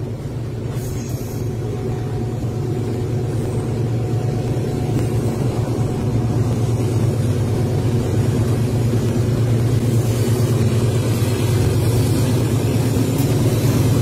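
Long freight train of hopper wagons rolling past, a steady low rumble that grows gradually louder as a mid-train diesel-electric locomotive approaches.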